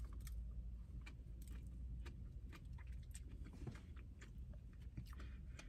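A person chewing a mouthful of donut, with faint irregular mouth clicks over a low steady hum.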